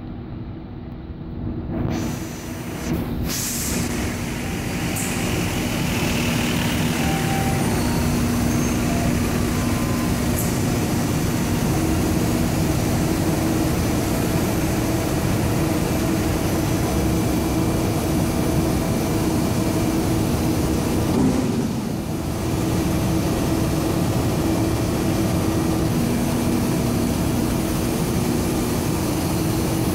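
Steady drone of polypropylene staple fiber production-line machinery running, with a low, even hum under it. It is quieter for the first couple of seconds, then holds level, with a short dip about three quarters of the way through.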